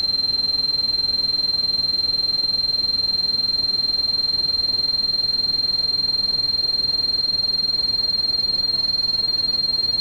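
A steady, high-pitched electronic sine tone held without change over a soft, even pink-noise hiss: a synthetic tinnitus-masking sound.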